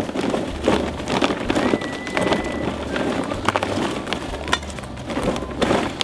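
Charcoal pieces poured from a bag into a backyard foundry furnace, clattering irregularly as they tumble onto the burning coals.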